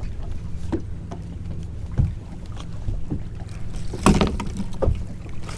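Steady low hum of a boat's motor, with a few scattered knocks and one louder clatter about four seconds in.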